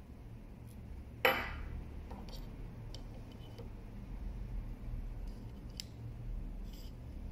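A sharp metal clink with a brief ring about a second in, as the jaws of a Mitutoyo 500-171-30 digital caliper knock against a steel tube, followed by a few small scattered ticks of the caliper sliding and seating against the tube.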